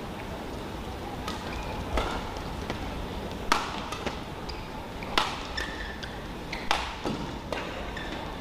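Badminton rally: rackets strike the shuttlecock back and forth, about six sharp hits roughly a second and a half apart, with brief shoe squeaks on the court floor between them.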